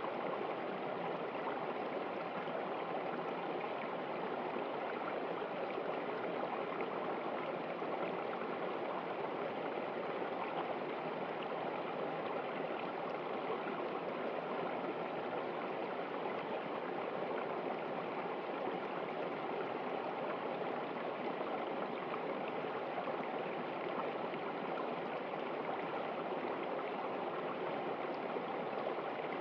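Stream water flowing over rocks, a steady even rushing and trickling with no change in level.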